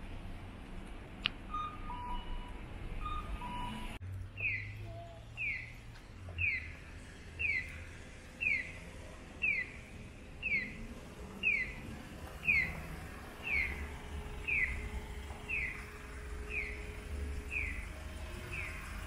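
Japanese audible pedestrian crossing signal sounding its electronic bird-chirp walk cue: a short chirp falling in pitch, repeated about once a second, starting about four seconds in, signalling that the light is green for walkers. Low steady street traffic rumble underneath.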